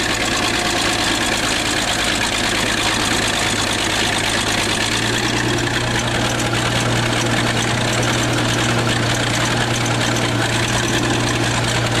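Bulldozer engine running steadily while the dozer pulls a sunken snowmobile out of a river; its low hum grows stronger about five seconds in.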